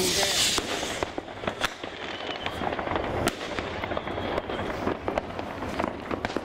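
Fireworks and firecrackers going off all around, many overlapping bangs and cracks at irregular intervals. A loud hiss in the first half-second.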